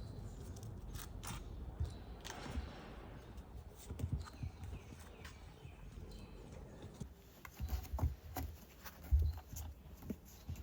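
Irregular footsteps with scattered light clicks and low thumps.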